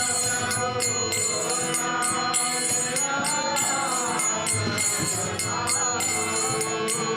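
Devotional kirtan music between sung lines. Held drone notes sound under a few gliding voices, and small hand cymbals (kartals) strike in a steady rhythm, about two to three ringing clinks a second.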